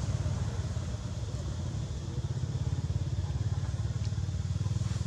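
A low, steady engine rumble with a fast, even pulse.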